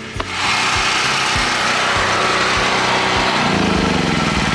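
Angle grinder grinding down a steel weld, a loud steady grinding noise with a motor whine, starting about half a second in.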